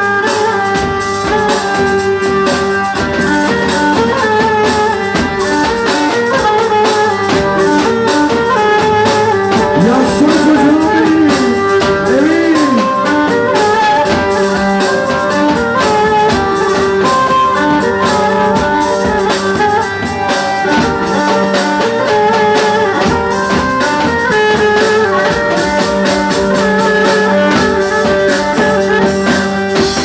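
Live Turkish dance music played loud and without a break: a davul bass drum beating under a melody line over a steady drone, with a few swooping pitch bends a little past the middle.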